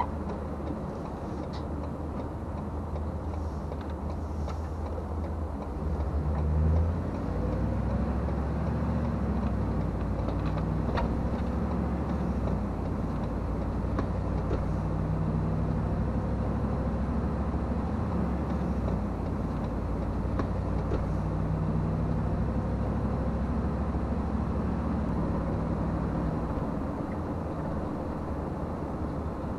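RV campervan driving on a highway: steady engine and road rumble, with a brief swell about seven seconds in.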